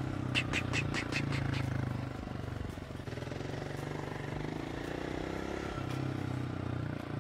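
Small dirt bike's engine running at low revs, a steady low note that dips and picks up again as the rider accelerates in and coasts off the throttle. A quick run of about six sharp ticks sits over it in the first two seconds.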